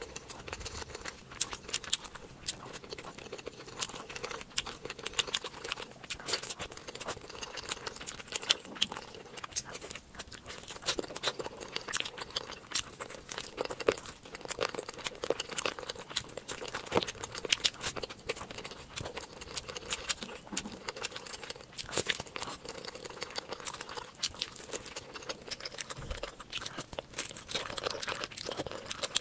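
Close-miked ASMR eating: a person chewing and smacking, with a dense run of sharp wet mouth clicks and crackles throughout.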